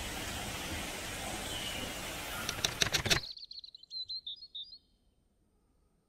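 Artificial waterfall splashing steadily, with a few sharp clicks about two and a half seconds in. About halfway it cuts off abruptly, leaving a few short high chirps and then near silence.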